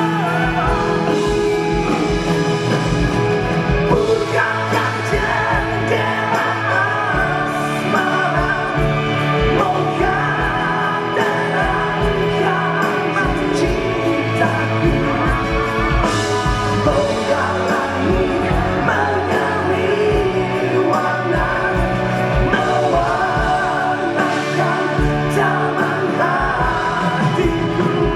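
A band playing a pop-rock song with a singer, part of a medley of Malay pop songs.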